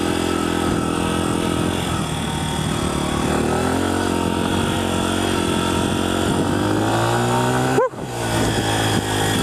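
Honda CRF100F's small single-cylinder four-stroke engine running under load on a dirt trail, its pitch climbing gradually. Near the end it revs up sharply, cuts out for an instant as the bike shifts up a gear, and picks up again at a lower pitch.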